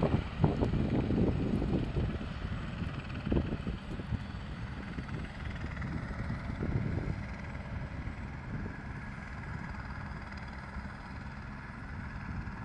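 Helicopter flying away, its rotor and engine noise loudest at first and fading steadily.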